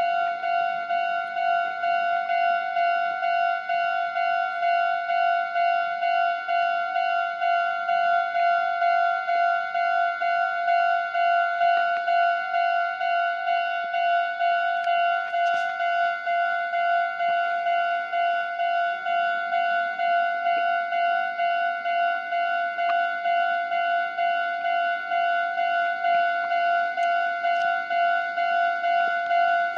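Railway level-crossing warning alarm on the Meitetsu Takehana Line ringing continuously: one steady electronic tone repeating in a regular pulsing rhythm.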